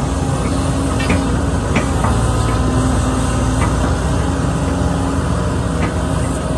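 Excavator's diesel engine running steadily under work, with a few short light knocks from the machine.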